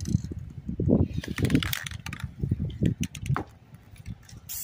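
Wind buffeting the microphone in uneven gusts of low rumble, with a few brief faint hisses.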